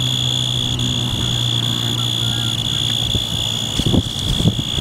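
Male Forbes' tree cricket (Oecanthus forbesi) singing one steady, unbroken high-pitched trill with its raised wings. Wind gusts rumble on the microphone over the last second or two.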